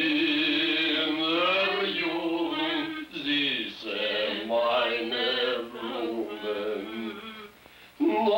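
A voice singing a slow Yiddish song unaccompanied, in long held phrases, with a brief break about three seconds in and a pause near the end.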